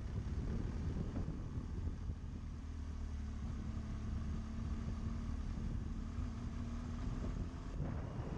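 Adventure motorcycle's engine running steadily under way, with wind noise on the microphone. A steady hum holds an even pitch through the middle, then the sound changes near the end.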